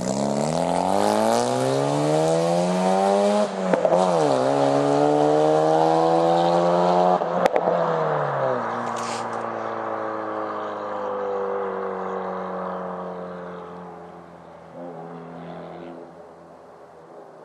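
Mazda RX-7's 13B two-rotor rotary engine, straight-piped with a 3-inch exhaust from the manifold back and no muffler, pulling hard. The revs climb to a brief break about three and a half seconds in, climb again to about seven and a half seconds, then ease off, the pitch slowly falling as the sound fades.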